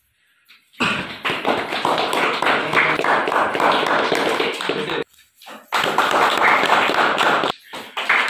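A roomful of children and adults clapping in applause, a dense patter of hand claps that cuts off abruptly about five seconds in and again near the end, then resumes each time.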